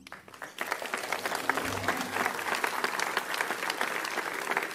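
Audience applauding at the end of a speech, with many hands clapping. The clapping starts about half a second in, swells quickly and then holds steady.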